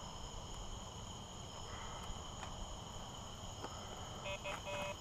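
Crickets chirping in a steady, unbroken high-pitched chorus. Near the end, two short beeps sound over it.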